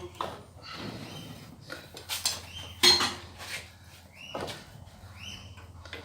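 A few irregular metallic clanks and knocks of steel stock and forging tools being handled at the anvil, the loudest about three seconds in. Birds call in the background.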